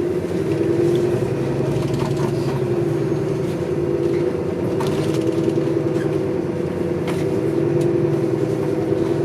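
City bus in motion, heard from inside the cabin: a steady engine and drivetrain drone, with a few light clicks and rattles.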